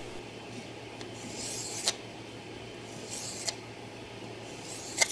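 A 600-grit abrasive-paper sanding stick rubbing over the newly soldered steel pin of a brass clock wheel in about three scraping strokes, each ending with a sharp click: final buffing to smooth the pin.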